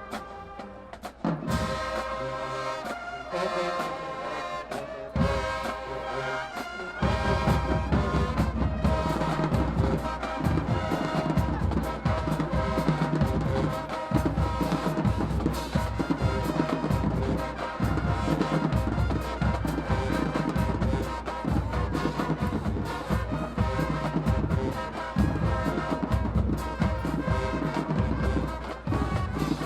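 High school marching band playing. Sustained brass chords open the passage. About seven seconds in, the drums and low brass come in with a steady beat.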